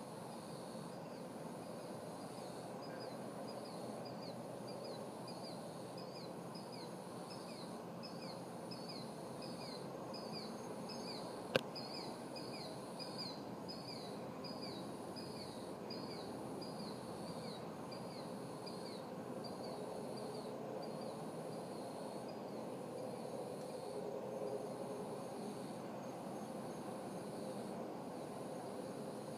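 Night insects in a steady, pulsing chorus, with a repeated high falling chirp about twice a second through the first two-thirds, over a low even background noise. One sharp click a little before the middle.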